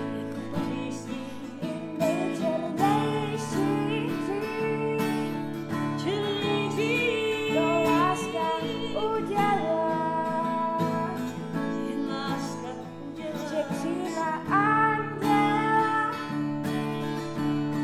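Acoustic guitar strummed in steady chords, accompanying a woman singing a melody.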